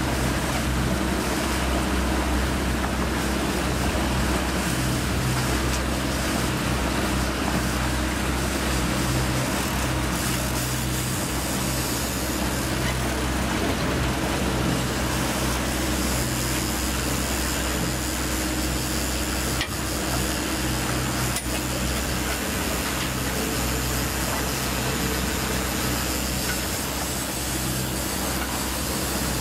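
Outboard motor running steadily as the boat moves at trolling speed, with the rush of water from the wake. Two sharp clicks about two-thirds of the way through.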